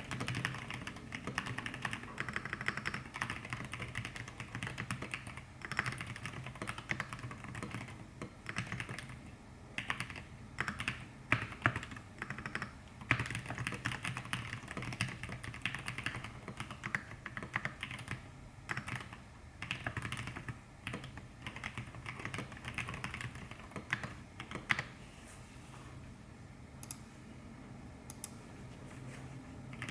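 Typing on an Exclusive E6-V2 mechanical keyboard with an aluminium plate, lubed Zealios 65g v2 tactile switches and thick PBT KAT Alpha keycaps: keystrokes in quick, irregular runs. The typing thins out to a few scattered strokes near the end.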